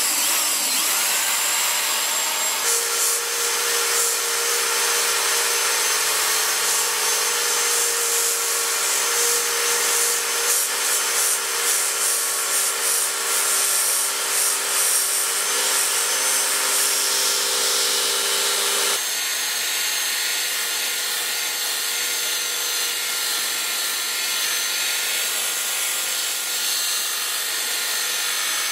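Hand-held electric belt file (narrow-belt power file) switched on at the start, then running steadily as its abrasive belt grinds a steel knife blade. The sound drops slightly and changes about two-thirds of the way in.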